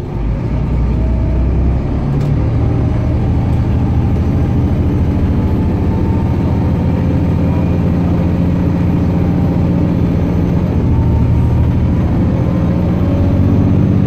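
Volvo B7TL bus's six-cylinder diesel engine running under way, heard from inside the lower deck. The engine note steps in pitch a couple of times, with a faint rising whine over the low engine hum.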